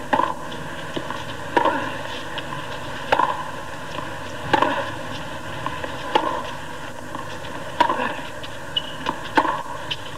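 Tennis rally: racquets striking the ball back and forth, a sharp pop about every second and a half, over a steady background hiss.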